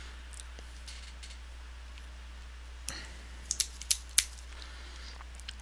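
A handful of short, sharp handling clicks about three to four seconds in, over a steady low hum.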